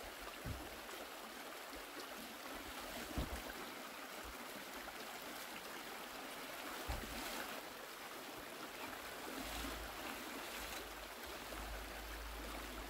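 Shallow mountain river running steadily over stones. A few brief low thumps and a low rumble near the end.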